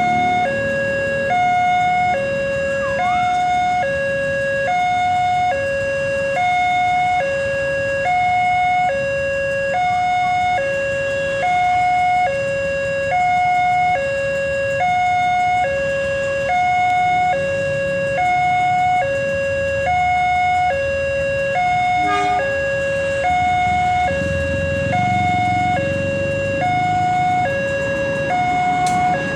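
Railway level-crossing warning siren alternating steadily between a high and a low tone, about once every 0.7 s, while the crossing is closed for an oncoming train. Its tone is hoarse, like laughter. A low rumble of road traffic runs underneath.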